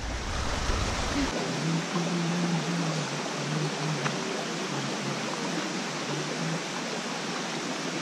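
Small forest stream running over stones, a steady rushing of water.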